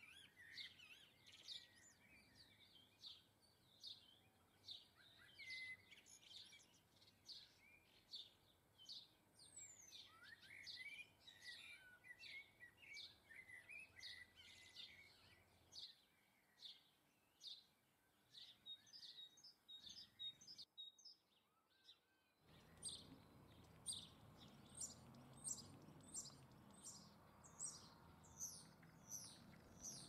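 Small garden songbirds chirping and twittering, faint, in quick short notes several a second, with a brief break about two-thirds of the way through.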